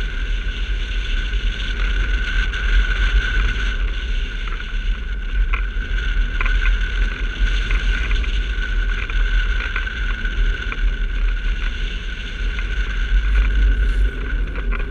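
Airflow buffeting the microphone of a camera mounted on a hang glider in flight: a loud, gusty rush of wind noise that is heaviest in the low end, with a steady high tone running under it.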